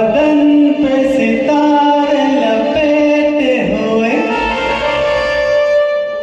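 Music: a Hindi film song with a backing track and a voice singing long held notes that slide between pitches.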